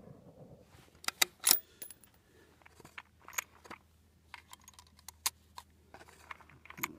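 A rifle shot's echo fading at the start, then a few sharp metallic clicks of the Savage 10FP bolt-action rifle's bolt being worked about a second in. After that come scattered light clinks of brass .223 cartridges being handled in a plastic ammo box.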